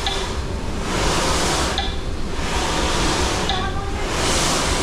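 Snowboard sliding and scraping on the moving carpet of an indoor snowboard treadmill, a steady hiss that eases and swells with each turn. A metronome beeps at even spacing, about every second and three quarters, setting the rhythm of the turns.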